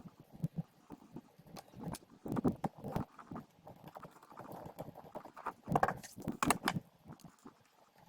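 Small irregular clicks and knocks of a screwdriver and plastic grip panels being handled as the grip screws are undone and the grips taken off an airsoft 1911 pistol's plastic frame, with two busier clusters, the louder one about six seconds in.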